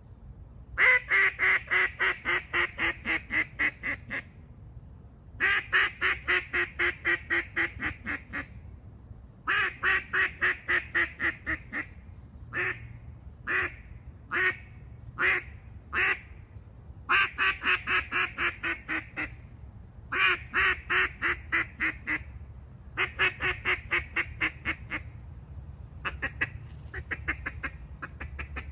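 Black River "Black Monster" keyhole duck call blown in runs of quacks, each run of about ten to a dozen quacks dropping in loudness. Near the middle come about half a dozen single quacks with gaps between them, and near the end a quicker, softer run.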